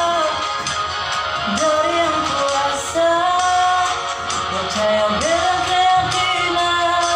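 A man singing a slow love ballad in Ambonese Malay, holding long, gently wavering notes, over a guitar backing.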